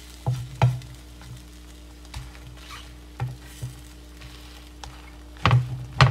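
An egg-coated maida flatbread frying in oil in a non-stick pan, sizzling faintly while a wooden spatula presses and pushes it, knocking against the pan about seven times; the loudest pair of knocks comes near the end.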